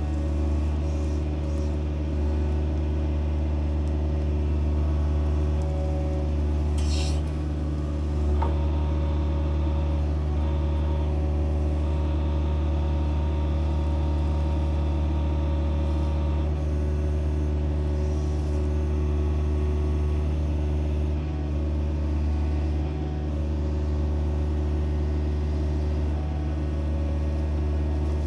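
An excavator's diesel engine running steadily under work. There is a single knock about eight seconds in and a faint high whine for a few seconds midway.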